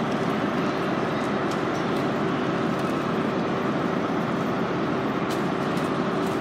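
Electric trains in a station: a steady hum and rumble as a multiple unit creeps in along the platform beside a standing unit.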